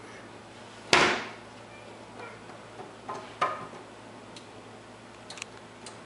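A loud wooden thump about a second in, then a few lighter knocks and clicks: a small child shifting about inside a closed wooden cabinet.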